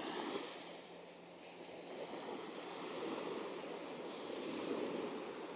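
Small waves washing up over a sandy beach: a soft, continuous rushing of shallow water that swells and eases.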